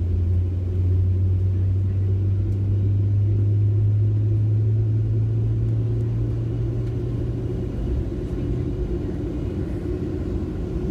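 Cabin noise of a Boeing 737-700 taxiing: a steady low drone from its CFM56 engines at taxi power over the rumble of the wheels on the taxiway, the drone easing off about eight seconds in.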